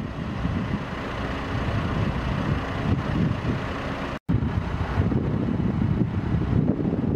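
Steady low rumble of a vehicle engine running close by, mixed with wind buffeting the microphone; the sound drops out for an instant about four seconds in.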